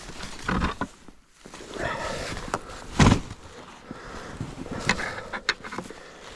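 Footsteps and handling noises in snow, uneven rustles and crunches, with one loud thump about three seconds in.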